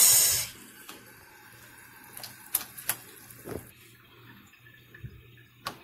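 Bite-sized pieces of raw beef going into a pot of boiling water: a loud splash right at the start, then a few sharp clicks and plops over the background of the boiling pot.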